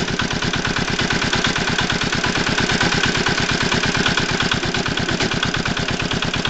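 Walk-behind tractor engine running steadily with a rapid, even beat and a knock in it.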